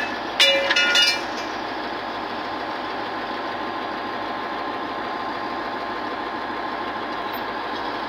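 Heavy diesel machinery running steadily, with a few brief, loud, high-pitched squeals in the first second or so.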